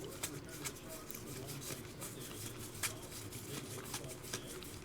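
Trading cards being handled and flipped through by hand: faint rubbing of card stock with many small clicks, one sharper click just before three seconds in.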